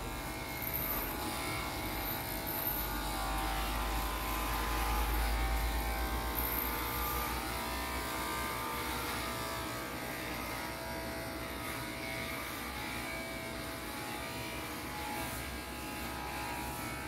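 Corded electric hair clippers buzzing steadily as they cut hair.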